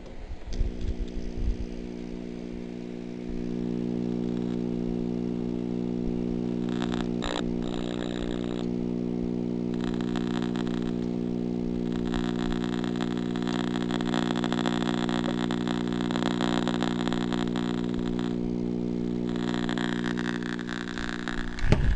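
1948 Crosley tube radio powered up with no antenna: its speaker gives a steady hum that steps up in level a few seconds in, under a hiss of static that rises and falls in patches.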